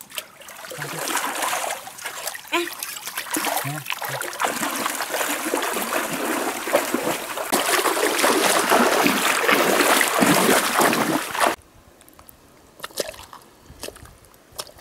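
A person wading in a shallow, muddy stream, kicking a leg hard through the water: continuous heavy splashing and churning that builds up and then cuts off suddenly, leaving only a few faint clicks near the end.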